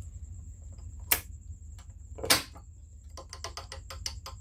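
Metal parts of a TR6060 six-speed transmission being worked by hand. There are two sharp metallic clacks, then a quick run of light metal clicks, about six a second, near the end. The owner suspects the play comes from a worn 1-4 slider and hub.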